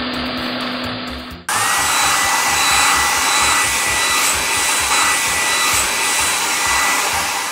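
Cartoon workshop machine sound effect: a steady electric whirring with a low hum, then about one and a half seconds in a louder hissing blast with a whine that rises and holds steady, as the overhead lamps light up the car. A low musical beat runs underneath.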